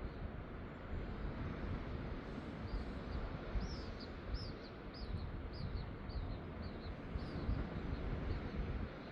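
A small bird singing a run of short, high chirping notes, about two a second, starting about three seconds in, over a steady low rumble of outdoor background noise.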